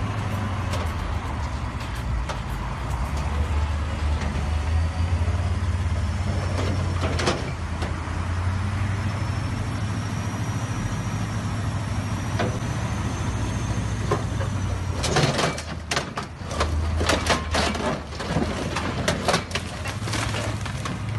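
A heavy truck crane's engine running with a steady low drone. A quick series of sharp knocks and cracks comes about three-quarters of the way through.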